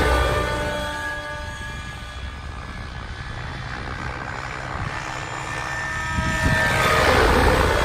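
Kraken electric RC helicopter flying aerobatic passes: rotor rush and a high motor-and-rotor whine, loud as it passes close at the start, fading as it flies far off, then swelling again to a second close pass about seven seconds in.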